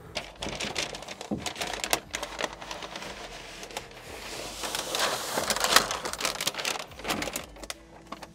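Crinkling and crackling as a sheet of Hydroturf foam decking with adhesive backing is laid into a plastic boat floor and pressed down by hand. There are many scattered sharp clicks, and a denser stretch of rubbing about halfway through.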